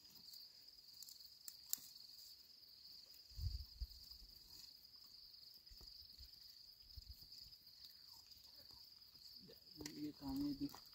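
Crickets chirping in a steady, continuous high trill. A couple of low thumps come about three and a half seconds in, and a voice speaks briefly near the end.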